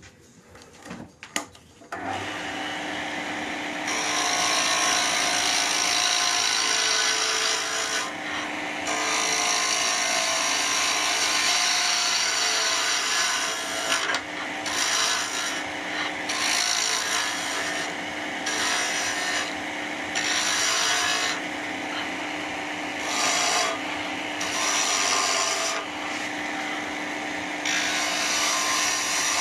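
Wood lathe starting up about two seconds in, then a chisel cutting a spinning segmented pen blank of padauk and cherry, rounding it down from square in long rough passes with short breaks as the tool is lifted.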